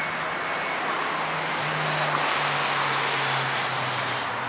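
A road vehicle passing on the street beside the railway, growing louder towards the middle and then fading, over a steady low hum.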